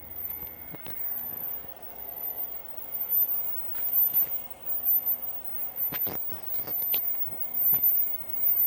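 Ultrasonic dog-bark deterrent emitting a very high-pitched warbling tone that sweeps up and down about once a second, near the top of hearing. A few sharp clicks and knocks come in a cluster about six to seven seconds in.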